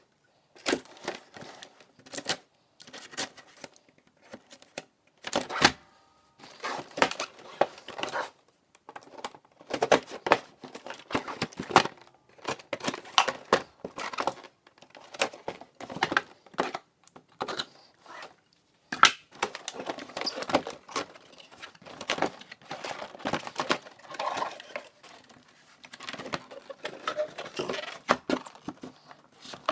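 A cardboard toy box being opened and unpacked by hand, its flaps and inner tray pulled out. The sound is irregular rustling and clicking of cardboard, in short bursts with brief pauses.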